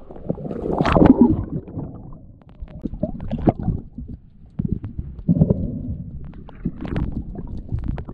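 Water splashing and gurgling as a swimmer goes under the surface, heard muffled underwater: a brighter splash about a second in, then irregular surges of water and bubbles with each swimming stroke.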